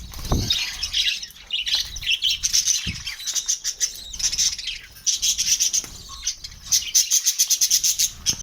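Pet lovebirds chirping busily, ending in a fast run of short, sharp chirps; two brief low thuds sound early on and near the middle.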